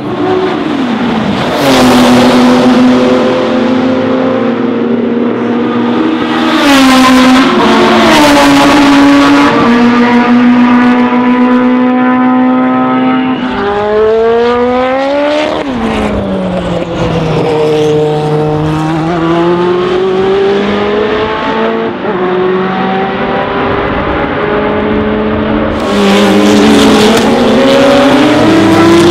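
Historic race car engines at high revs: one held near full throttle for several seconds, then a car passing with its engine note rising and falling. Sharp cracks from the exhaust break in about seven and eight seconds in and again near the end.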